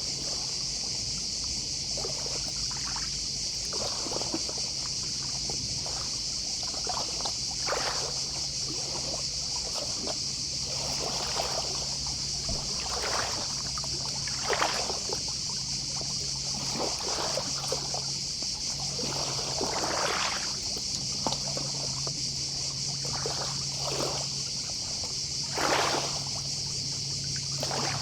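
Gentle sea waves lapping and splashing at the shore in small irregular washes, over a steady chorus of distant cicadas. A faint low hum comes and goes underneath.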